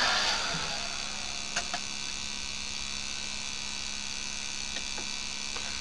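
Steady electrical hum from a bench test rig, with a few faint clicks. A louder hiss fades out during the first second.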